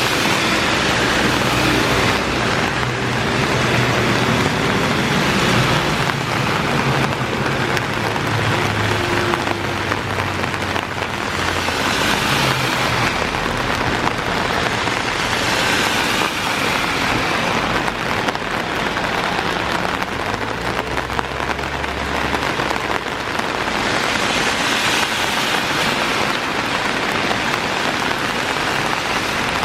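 Heavy rain pouring steadily onto surfaces, with cars passing now and then on the wet road, their tyres hissing through water and engines humming low, most clearly about a third of the way in and again around two-thirds through.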